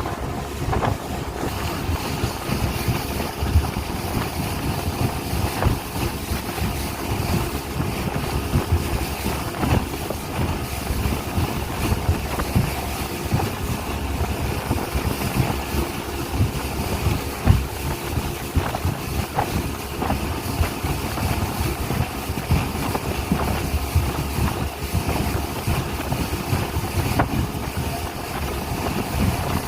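Speedboat under way at speed: the engine runs steadily beneath a heavy, fluttering rush of wind and water noise that buffets the microphone.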